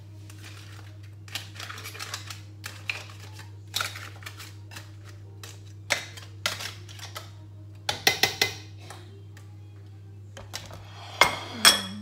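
Metal ladle clinking and scraping against a stainless steel stockpot as seafood is stirred, with irregular sharp knocks that cluster about eight seconds in and again near the end, over a steady low hum.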